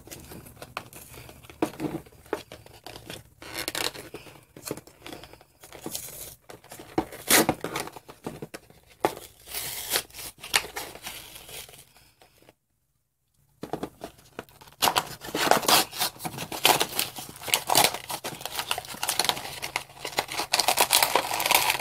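A cardboard toy box and its clear plastic packaging being torn and crinkled open by hand, in irregular rips and rustles. The sound drops out completely for about a second a little past halfway, then the tearing and crinkling go on, busier toward the end.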